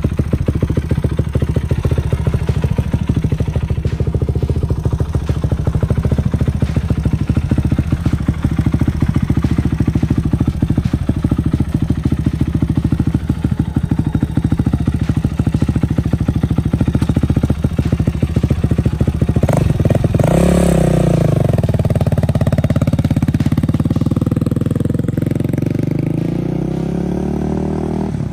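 2008 Yamaha YFZ450 quad's single-cylinder four-stroke engine idling with a rapid, steady beat. About twenty seconds in it revs sharply as the quad pulls away, and the engine note climbs and dips as it rides off.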